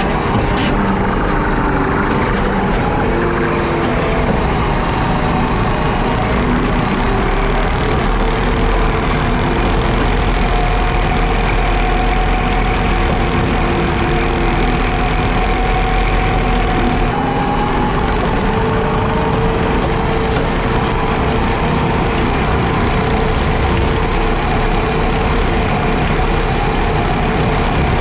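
JCB Teleskid skid steer's diesel engine running steadily, driving a 7-foot Jenkins bush hog rotary mower, its tones shifting in pitch now and then. A sharp click about half a second in.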